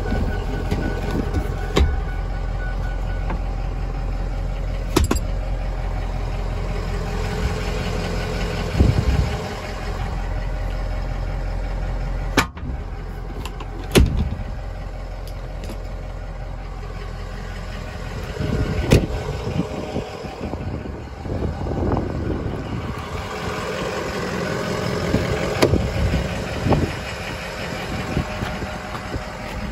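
Ford 6.0 L Power Stroke V8 turbo-diesel idling steadily, with a few sharp knocks and rustles scattered through it.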